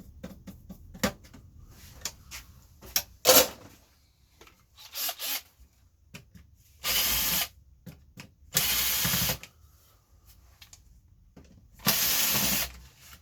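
Cordless drill-driver spinning screws out of an old cassette deck's casing in three short bursts, after a run of small clicks and knocks from handling the unit, the loudest a sharp knock a few seconds in.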